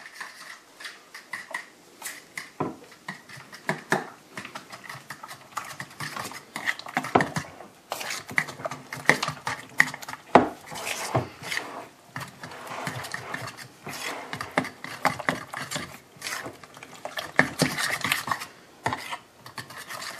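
A utensil beating a thick egg, cream, cheese and almond-flour batter in a bowl: quick, irregular clicks and scrapes against the bowl, with wet stirring sounds.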